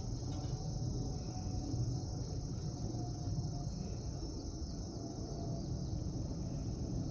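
Steady, high-pitched chorus of insects, with a low, uneven rumble underneath.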